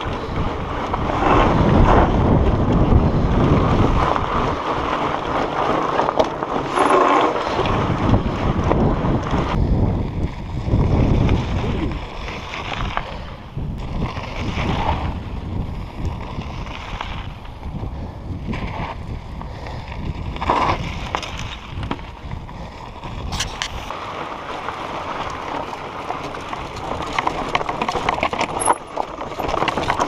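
Mountain bike riding over a rocky dirt trail: wind buffeting the action camera's microphone over the rolling crunch and rattle of the tyres on loose stones. The wind rumble is heaviest in the first dozen seconds and eases somewhat in the middle.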